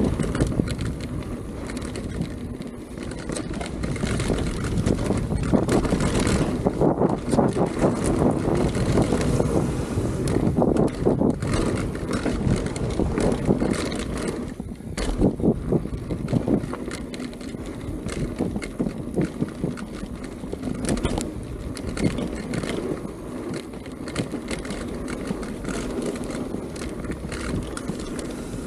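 Mountain bike riding down a dirt flow trail: tyres rolling over the ground with frequent rattles and knocks from the bike over bumps, and wind buffeting the microphone.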